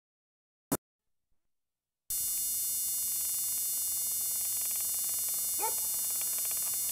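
Dead silence broken by a single sharp click, then about two seconds in videotape playback noise switches on abruptly: a steady hiss with a high, thin electronic whine of several steady tones. A brief faint sound rises out of it about two-thirds of the way through.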